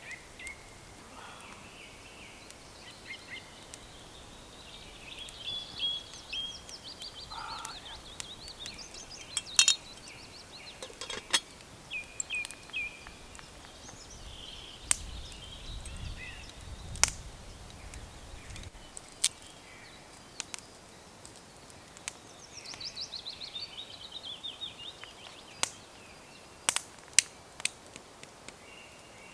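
Songbirds singing in woodland, with trilling phrases in the first third and again near the end, and scattered sharp pops and clicks from a small wood fire crackling.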